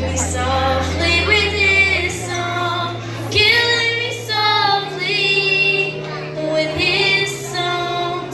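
A girl singing a song into a microphone over backing music, its held bass notes changing every couple of seconds.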